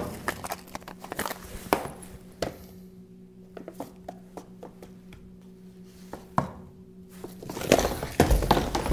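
Cups and cans clicking and knocking as they are handled and set down on a stainless-steel counter, over a low steady hum that stops about seven seconds in. Near the end comes a louder clatter as several cups are swept across the counter.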